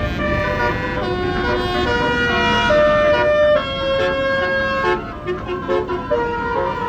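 Multi-tone basuri (telolet) horn on a bus playing a melody. It starts suddenly and steps from note to note, with several horn tones sounding together.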